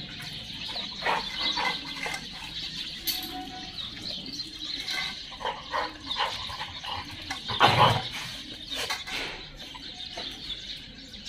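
A group of dogs making scattered short dog sounds, with one louder sound about eight seconds in.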